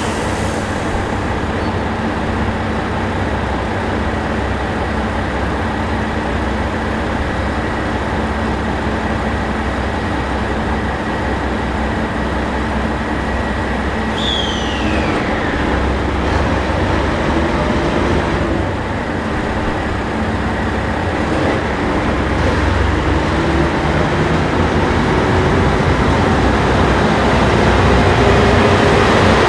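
Train at a station running steadily with a constant hum, a short falling squeal about halfway through, and a whine that rises steadily in pitch and grows louder over the last third.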